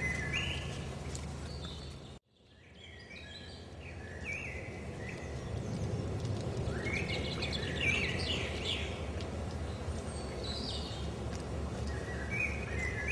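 Several birds singing in short chirping phrases over a steady low rumble, like wind on the microphone. The sound cuts out suddenly about two seconds in, then fades back up with the birds still singing.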